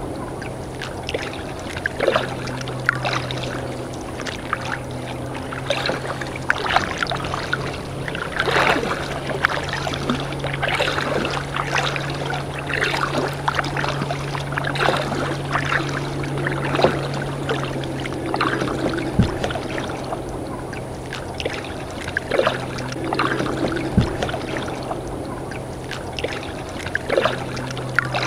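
Water lapping and dripping around a kayak's hull, with irregular small splashes and trickles, over a steady low hum.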